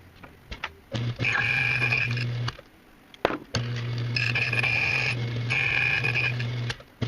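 Ilco 017 key duplicator running with a steady motor hum while its cutting wheel scrapes against a key blank in several short passes. The cutting wheel is dull.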